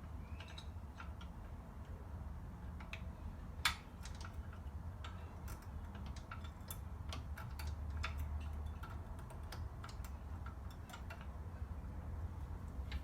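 Irregular light clicks and taps of the mower's drive clutch cable and its metal fittings being handled as the threaded end is screwed into its holder. One sharper click comes about four seconds in, over a low steady rumble.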